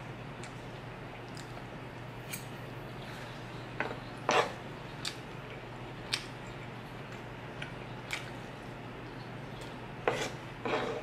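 Metal fork and spoon clicking and scraping against a wooden cutting board as rice is scooped up, in scattered short strokes, the loudest about four seconds in and several more near the end, over a steady low hum.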